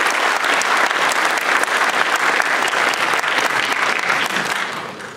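Conference audience applauding after a talk, steady clapping that fades out near the end.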